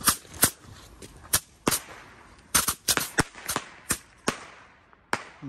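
Rocket firecrackers going off: about a dozen sharp cracks and pops in an irregular string, bunched closest together in the middle of the run.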